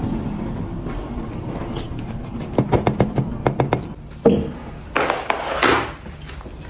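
A small plastic milk pouch being snipped open with scissors and handled: a quick run of sharp clicks, a knock, then crinkling of the pouch as milk is poured onto freeze-dried cat food cubes in a ceramic bowl.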